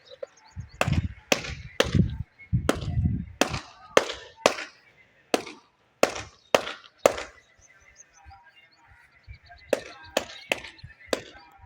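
A hammer striking tile or masonry: about a dozen sharp knocks in quick succession, roughly two a second, then after a pause a few more near the end.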